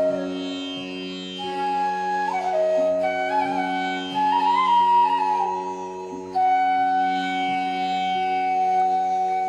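Background instrumental music in an Indian classical style: a sliding melody over a steady drone, becoming suddenly louder about six seconds in.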